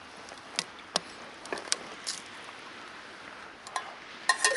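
Small twig-and-wood campfire crackling, with sharp irregular pops over a faint hiss. Near the end a few quick metallic clinks with a short ring, as of a metal pot being handled.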